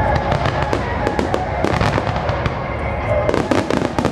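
Fireworks finale: many aerial shells bursting in quick succession, a dense run of overlapping loud bangs and crackles.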